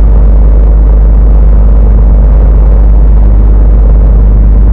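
Loud, steady low rumble with an even engine drone underneath, typical of a sailboat's inboard engine running while under way.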